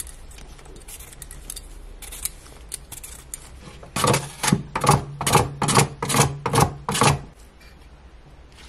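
A potato is pushed up and down across the slicing blade of a stainless steel Westmark box grater, about eight rasping strokes in three seconds, each cutting off a slice. Before that there are a few light handling clicks, and the strokes stop suddenly.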